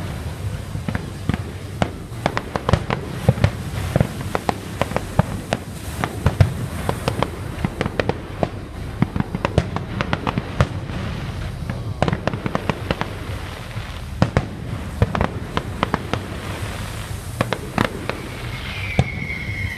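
Fireworks going off in a dense, unbroken run of bangs and crackles over a low rumble. A high whistle slides slightly downward near the end.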